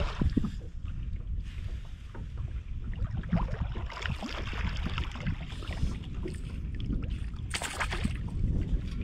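Wind buffeting the microphone over open water, a steady uneven low rumble, with one brief hissing rush of noise about seven and a half seconds in.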